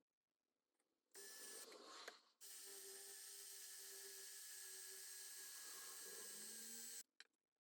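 Mini drill press motor running steadily while drilling holes in a plate: a short run about a second in, then a longer steady run that stops abruptly near the end.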